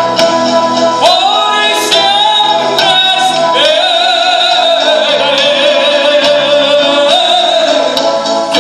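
A male singer performing a song live with band accompaniment. About three and a half seconds in, he holds a long note with vibrato that lasts until near the end.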